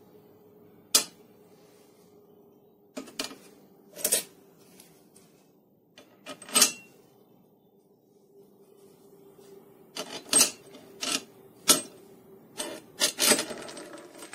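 Small machined metal spacers and a bent sheet-metal bracket clinking and scraping as they are set down and moved about on a steel workbench: about a dozen separate knocks, bunched near the end, over a faint steady hum.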